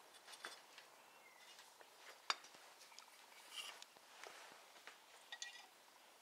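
Near silence with sparse faint clicks and light metal clinks, a sharper click about two seconds in. This is the readout display's mount being shifted by hand as it is levelled; the mount has some play.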